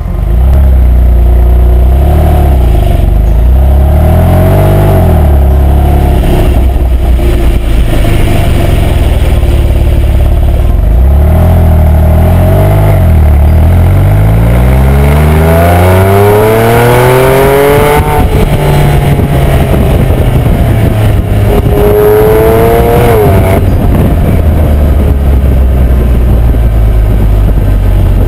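Porsche 997.2 Carrera GTS 3.8-litre flat-six exhaust heard at the quad tailpipes on the move: revs rise and fall gently at first, then two hard accelerations, each climbing steeply in pitch and breaking off sharply, the second near the end.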